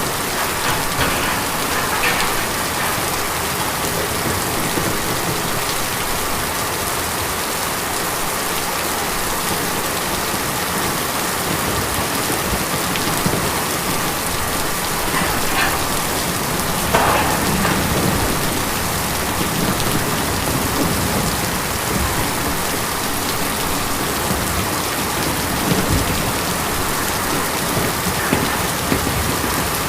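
Steady rain falling on tin, an even patter with a few louder drops standing out here and there, the most noticeable a little past halfway.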